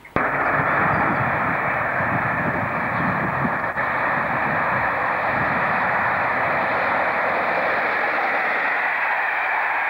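Class 47 diesel locomotive passing at speed with an InterCity train: a loud, steady rush of engine and wheel noise that starts abruptly, with more rumble underneath in the first few seconds.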